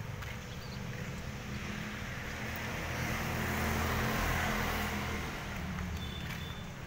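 Isuzu Panther's 2.5-litre direct-injection diesel engine idling steadily, with a broad rushing noise that swells in the middle and fades again.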